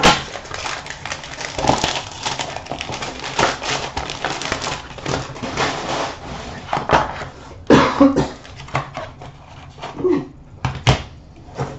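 Cardboard mystery box being opened by hand and its contents pulled out: a steady run of rustles, scrapes and small clicks of packaging being handled.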